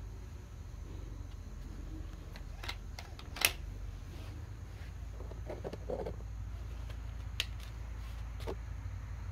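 Sharp metallic clicks from handling an air rifle, with one much louder snap about three and a half seconds in and a short rattle about two seconds later, over a steady low hum.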